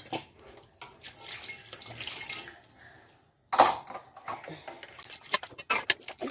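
Steel dishes being washed by hand: scrubbing over a metal basin, then a sharp clatter a little past halfway and a quick run of metal clinks near the end.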